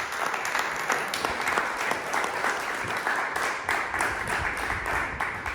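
A group of people applauding, many hands clapping together after a thank-you speech.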